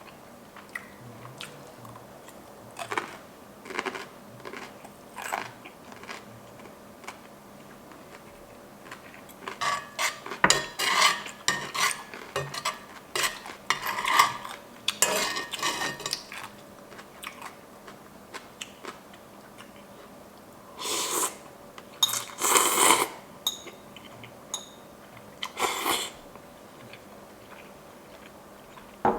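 Eating utensils clinking and scraping against bowls and plates in scattered bursts, with short eating noises between, over a faint steady hum.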